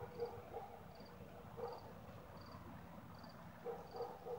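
Crickets chirping steadily, one short high pulsed chirp about every three-quarters of a second. A few louder, lower short sounds come at the start and again near the end.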